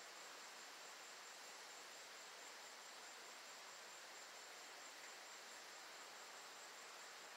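Near silence: faint steady hiss with a thin, unbroken high-pitched insect trill, like a cricket.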